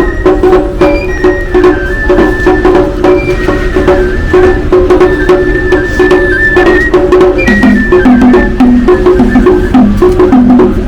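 Traditional music: a high flute melody in long held notes over drums and sharp wooden clacks, with a lower melody line joining about two thirds of the way through.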